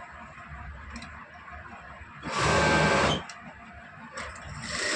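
Industrial sewing machine driven by its servo motor, run at high speed in two bursts: about a second just past the middle, then again near the end with a steady whine. The speed is set too high.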